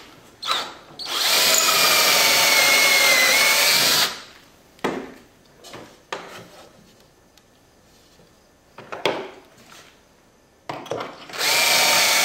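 Cordless drill spinning a stepped pocket-hole bit into half-inch plywood in a Kreg pocket-hole jig, with a steady whine for about three seconds. Then come a few knocks as the board is moved in the jig, and the drill starts boring again near the end.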